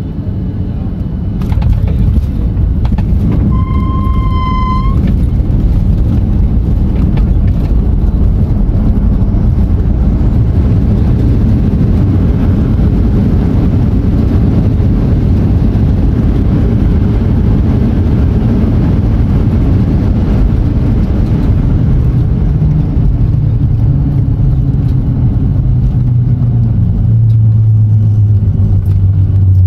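Cabin of a Boeing 737 on landing: the rumble jumps up about a second and a half in as the wheels meet the runway, then holds loud and steady through the rollout with the ground spoilers raised. A short beep sounds about four seconds in, and a steadier low engine hum comes up near the end.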